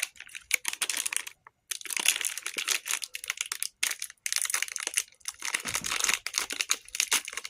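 Snack packaging crinkling and rustling as it is handled and opened, in irregular bursts with short breaks about a second and a half in and about four seconds in.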